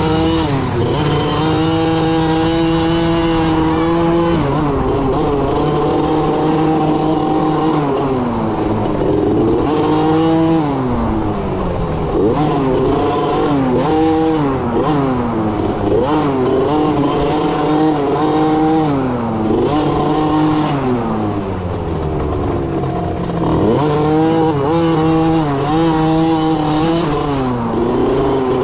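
Youth dirt bike engine, heard close up from on the bike, revving up and down as the rider works the throttle and gears along a trail. Its pitch climbs, holds, then drops again every couple of seconds.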